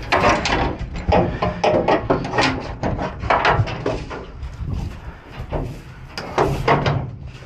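Metal gates and spring latches of a livestock trailer clanking and rattling as they are unlatched and slid open by hand, a run of knocks and scrapes one after another.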